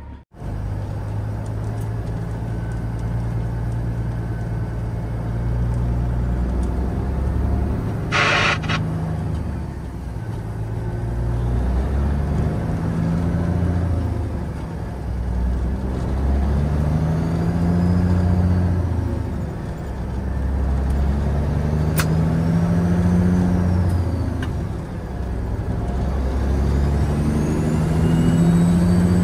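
Diesel engine of a Peterbilt 379 semi truck heard from inside the cab, pulling through the gears as the truck gets under way, its pitch climbing and dropping away with each upshift. A short hiss of air about eight seconds in.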